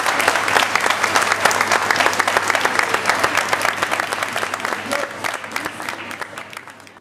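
Crowd applauding, a dense patter of many hands clapping, fading away over the last two seconds.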